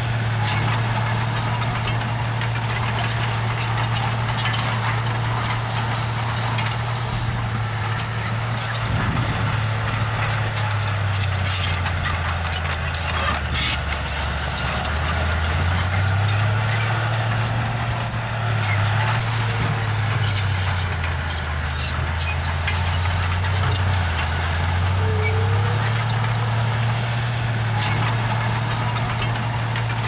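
Diesel engine of a small crawler bulldozer running steadily. Its note drops lower twice for several seconds and comes back up, with scattered faint clicks and clanks over it.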